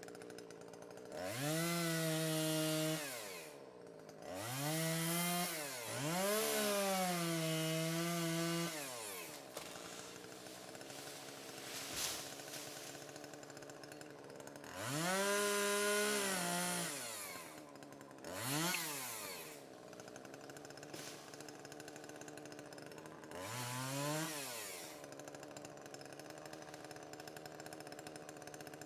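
Chainsaw idling and being revved up six times. Each time the pitch climbs, holds for a second or up to about three seconds, then drops back to a steady idle; the last two revs are short blips.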